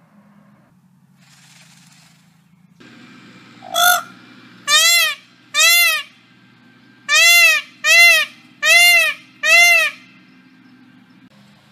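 Indian peafowl peacock giving the call known as the "purring trumpet": seven loud trumpeting calls, each rising and falling in pitch. There is one call about four seconds in, then a pair, then four in quick succession.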